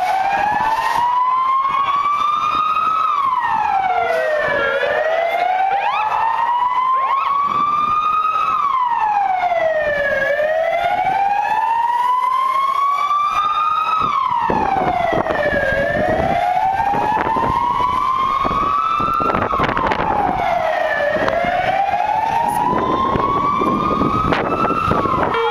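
Police van siren on a slow wail, rising and falling about every five and a half seconds, with another siren crossing it at times. A rougher low rumble of engines and road noise grows heavier about halfway through.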